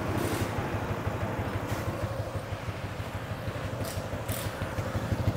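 Yamaha Exciter 135's single-cylinder engine idling steadily through its original exhaust, with an even beat. The engine is freshly rebuilt back to stock spec with its fuel injection retuned, and it runs smoothly.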